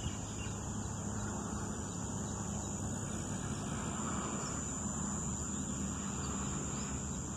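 Field ambience: a continuous high, thin insect trill, typical of crickets or cicadas, over a steady low noise.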